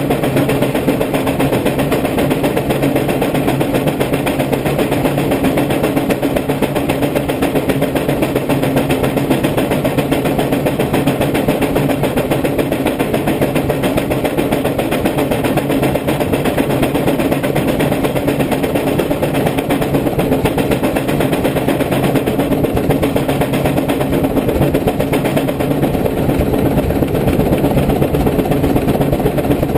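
110 hp Case steam traction engine working against a brake, its exhaust chuffing from the smokestack in rapid, steady beats.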